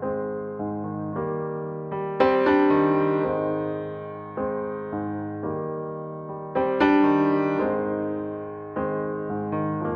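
Slow background piano music: chords are struck and left to ring and fade, with louder chords about two seconds in and again near seven seconds.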